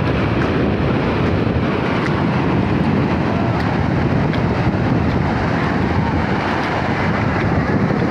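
Steady rumbling wind noise buffeting the microphone.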